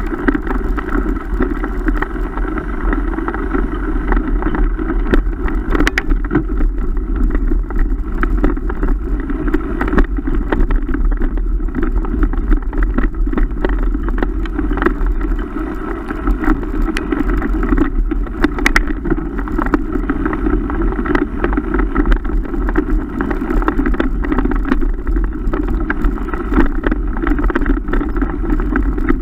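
Steady wind and rolling rumble on the camera of a mountain bike riding fast along a dirt trail, with scattered small knocks and rattles from the bumps.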